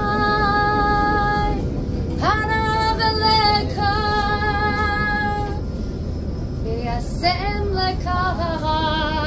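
A woman singing a Hebrew worship song in long held notes, to acoustic guitar, over the low running rumble of the tram.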